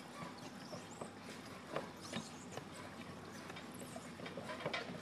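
Gas bubbling up from a streambed and breaking the surface of shallow water: faint, irregular small pops and clicks over a steady hiss. The gas catches fire at a lighter flame, and the uploader takes it for natural gas seeping up through the creek.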